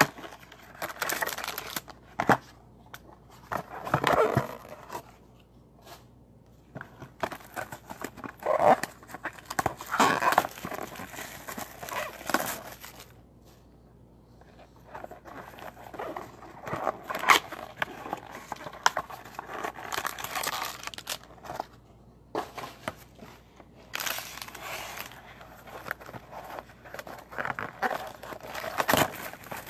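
Clear plastic shrink wrap being torn off a sealed trading-card hobby box and crinkled, in irregular bursts with short pauses, along with cardboard boxes being handled.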